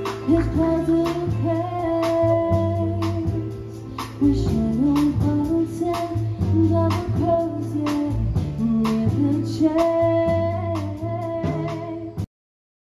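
Live jazz combo: a woman singing into a microphone over upright bass and drums with a steady beat. The music cuts off abruptly near the end.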